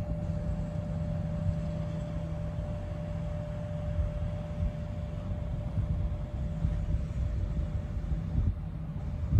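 Low, uneven rumble with a steady mechanical hum over it; the hum fades out near the end.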